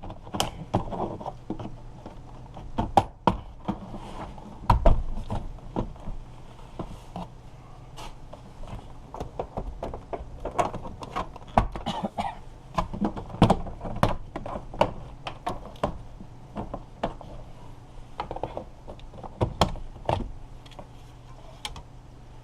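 Front door trim panel of a 2017 Nissan Sentra being pried off with a door trim remover: irregular sharp pops, clicks and knocks as the panel's retaining clips let go, a few with a heavier thump.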